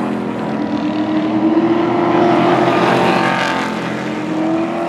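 Pro Truck race trucks running at racing speed on an oval track, several engines at high revs together. The engine pitch climbs, dips about three seconds in, then climbs again as the pack goes by.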